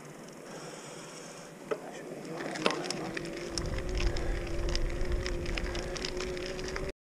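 Riding an Orbea Gain e-bike on a rough country lane: a steady electric hub-motor whine comes in about two and a half seconds in, over low wind rumble on the microphone and scattered clicks and rattles from the bike on the road surface. The sound cuts out abruptly near the end.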